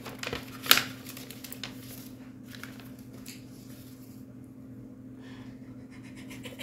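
Paper rustling as an envelope is opened and a folded sheet unfolded, with one sharp crackle of paper a little under a second in. A steady low hum runs underneath.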